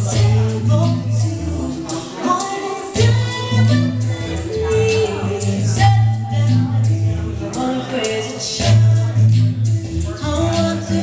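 Live band playing a song with a singing voice over a steady bass line and regular percussive strokes; the bass drops out briefly about two seconds in.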